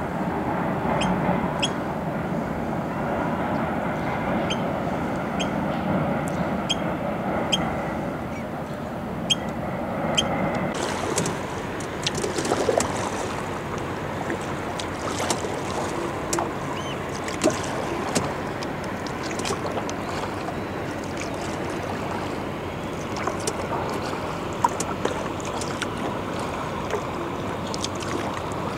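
Kayak paddling on calm water: a steady wash of water with drips and small splashes from the paddle blades. A light tick comes about once a second in the first several seconds.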